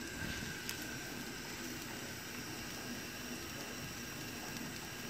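Steady faint hiss of a crêpe cooking in a frying pan over a gas burner, with a couple of light clicks in the first second.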